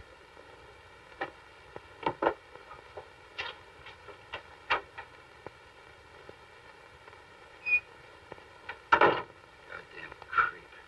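Steady low hiss and hum with faint steady tones, broken by scattered, irregular clicks and soft knocks.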